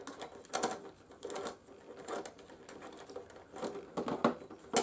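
A screwdriver unscrewing a Torx bolt from a motorcycle's plastic fairing panel. Small metal clicks and scrapes come irregularly, about half a dozen.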